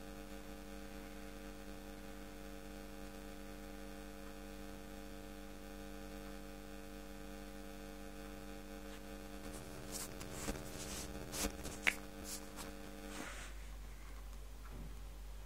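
Steady electrical mains hum, a stack of even low tones, with a few sharp clicks and knocks near the end. The hum then cuts off suddenly.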